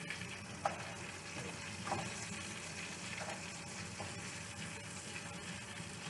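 Seasoned skin-on chicken thighs frying in hot oil in a pan: a steady sizzle with a few scattered pops.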